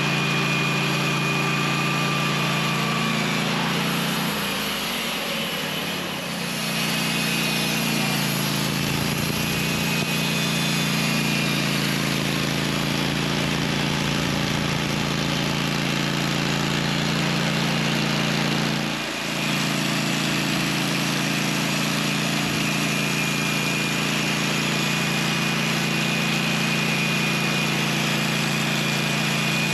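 Sawmill engine running steadily under a constant mechanical din, easing off briefly twice, about five seconds in and again near nineteen seconds.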